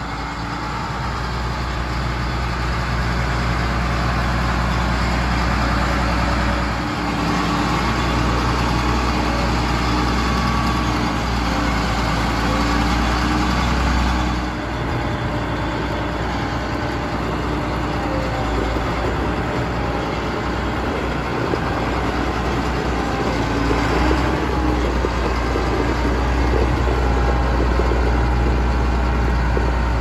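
John Deere 9500 combine's diesel engine running steadily just after starting, a low, even engine drone with a short dip in level about halfway through.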